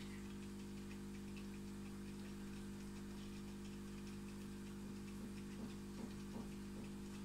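Running aquarium: a faint steady hum, as from its pump or filter motor, under light irregular ticking and patter of water, with a few slightly louder ticks in the second half.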